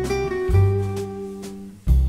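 Background music: an instrumental track led by plucked guitar, with a deep bass note that changes about every second and a half.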